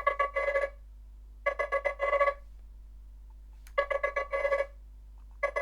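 Nothing Phone 2a stock ringtone playing: a phrase of quick pitched notes ending in a longer note, repeated three times with pauses between, the next repeat starting near the end.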